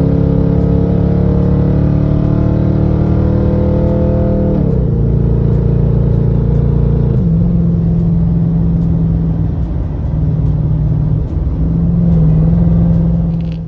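2017 Nissan Titan pickup with its muffler deleted, heard from inside the cab under acceleration. The exhaust drone climbs slowly, drops in pitch twice as the automatic transmission upshifts, then holds a steady drone at highway speed.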